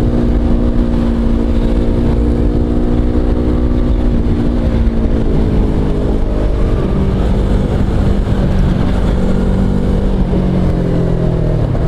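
Motorcycle engine running at steady revs, then dropping in pitch about four seconds in as the bike slows, settling at a lower note and picking up slightly again near the end. Underneath runs a constant low rumble of wind and road noise.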